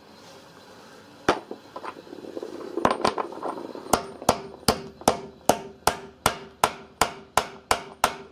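Hammer tapping a drift to drive a new outer drum bearing into its greased seat in a washing machine's drum hub. A few scattered taps come first, then a steady run of light taps about two and a half a second, each with a short metallic ring.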